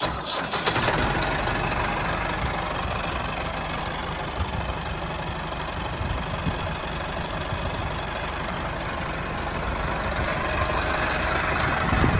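Tractor engine running steadily at idle-like speed, growing a little louder near the end.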